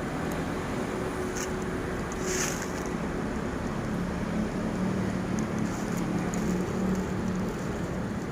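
Steady road traffic noise with wind on the microphone, a low engine hum growing stronger in the second half and a brief hiss about two and a half seconds in.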